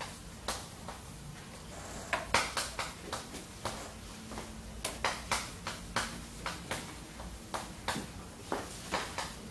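Chalk tapping and scraping on a blackboard as characters are written stroke by stroke: a run of short, sharp, irregular taps, several a second, thicker from about two seconds in.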